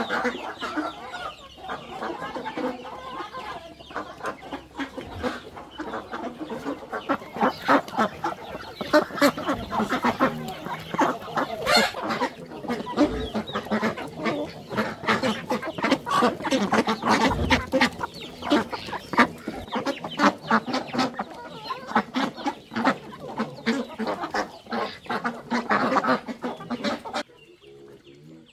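A flock of chickens clucking and calling busily as they feed. The sound drops away suddenly near the end.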